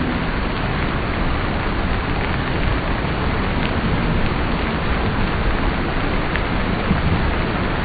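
Steady, even rushing of water, heavy as of a downpour, with no let-up.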